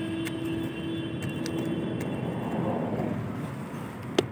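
Medicine tablets being crushed inside folded paper with a small metal cylinder on hard ground: faint rubbing and clicking, then a sharp tap near the end as pounding begins. A steady low hum runs under the first half and fades.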